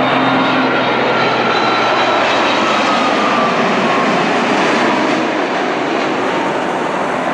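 Boeing 787 Dreamliner's GEnx jet engines on landing approach, passing low overhead: a loud, steady jet roar with a faint whine that glides slowly down in pitch.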